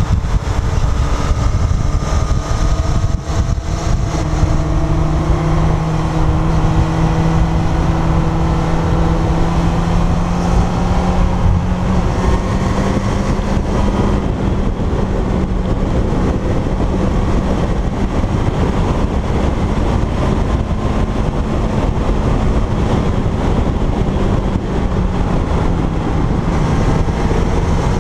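Kawasaki Zephyr's air-cooled inline-four engine running at a steady cruise, heard from on board over a heavy rush of wind on the microphone. The engine note holds steady, creeping slowly up in pitch and dropping a little near the end.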